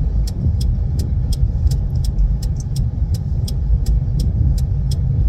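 Inside a moving car's cabin: steady low road and engine rumble, with a turn-signal indicator ticking about three times a second.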